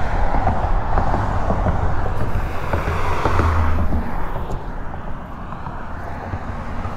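Wind rushing over the microphone mixed with road traffic passing on the bridge, a continuous rumble and hiss that swells around the middle and eases toward the end.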